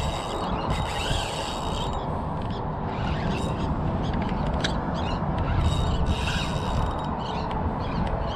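Spinning reel being cranked to retrieve line, its gears whirring with some ticking in stretches, over a steady low rumble.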